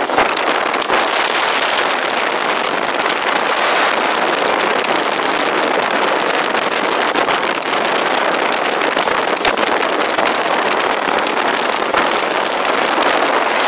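Steady loud wind rush over a camera microphone moving at a gallop, with scattered sharp clicks and knocks over it.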